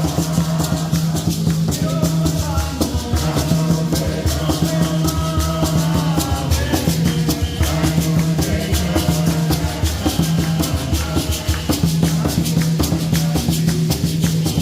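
Music with a fast, busy percussion rhythm of rattle-like strikes over a repeating bass line.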